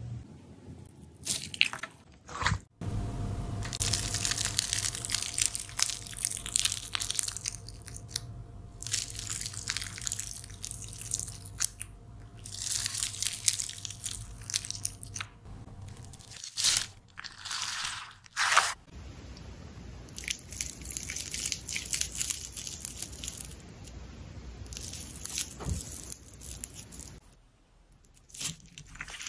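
Jelly slime being squeezed and pressed by hand, giving crackly, wet squishing sounds in spells of a few seconds with short pauses between them.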